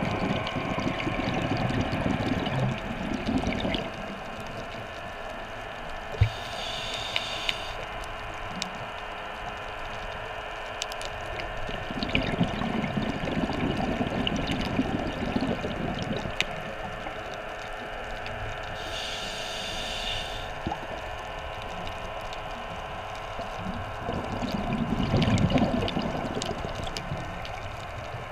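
Underwater sound heard through a camera housing: a steady hum from diver propulsion vehicle motors under a wash of water noise. About every twelve seconds a diver breathes, with a swelling rumble of exhaled bubbles and a short hiss of regulator inhalation.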